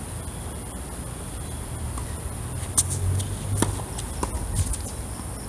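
Tennis rally: a few sharp pops of rackets striking the ball and the ball bouncing on the hard court, bunched between about halfway and near the end, the first the loudest. A steady high-pitched whine runs underneath.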